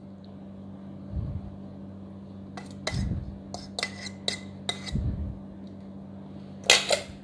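A metal utensil clinking and scraping against a stainless-steel mixing bowl as vegetables are pushed out of it: a run of short, sharp clinks with a light ring, and a louder pair of knocks near the end. Soft low thuds come now and then over a steady low hum.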